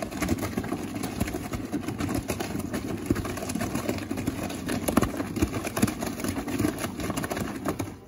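AEG top-loading washing machine running with its lid open, its drum turning and water spraying and sloshing inside with a dense rattle. It stops abruptly at the end.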